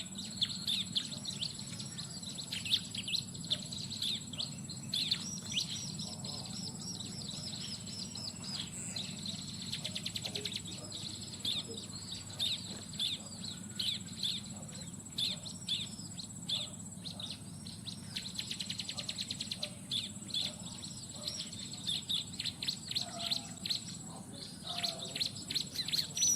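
Bar-winged prinias (ciblek) calling: rapid series of high, quick downward-sweeping chirps over and over. A steady high insect drone runs beneath them.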